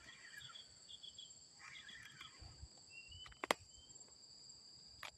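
Steady insect chorus holding two high pitches, with a few short chirping calls and one sharp click about three and a half seconds in.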